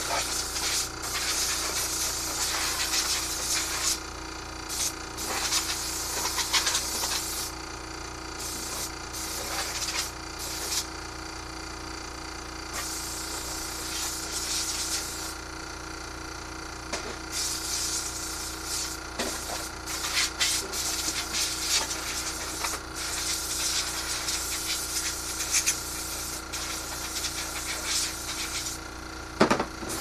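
Harsh rasping, sizzling noise from metalwork on a garage door spring hook, coming in bouts of a few seconds with short pauses between them. A steady hum runs underneath.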